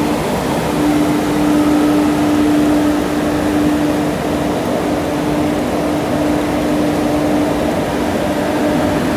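A banker set of WAG-7 electric locomotives running past: a steady mechanical hum with one held tone that breaks off briefly a couple of times, over a constant rushing noise of the locomotives and rain.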